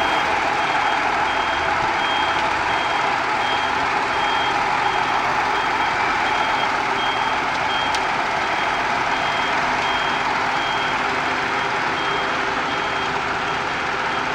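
Reversing alarm of a Mercedes-Benz Actros 4141 concrete mixer truck beeping in a steady run of short, evenly spaced high tones, over the continuous noise of the truck's running engine.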